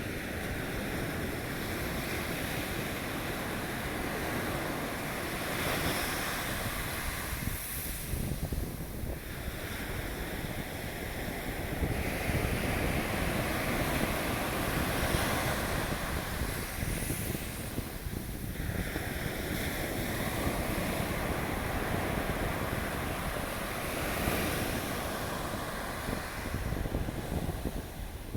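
Ocean surf breaking and washing up the shore, swelling and ebbing every several seconds, with wind rumbling on the microphone.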